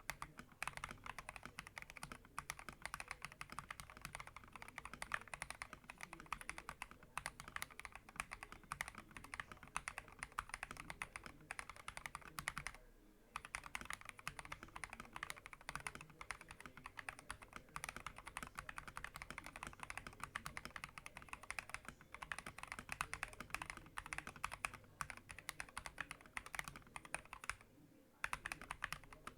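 Fast continuous typing on an FL eSports MK870 mechanical keyboard with Akko Rose Red linear switches and PBT XDA keycaps, a dense run of key clacks with two short pauses, one about halfway through and one near the end.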